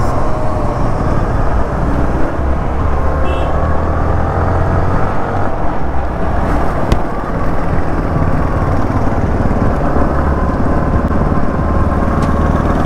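Yamaha motorcycle running under way in traffic: a steady engine note under a heavy low rumble of wind and road noise.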